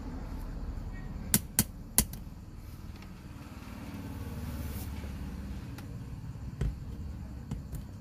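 Sharp plastic clicks and knocks as a dash camera mount is handled and fitted onto a car's rear-view mirror stem: three quick clicks about a second and a half in, a few lighter ones later, over a steady low rumble.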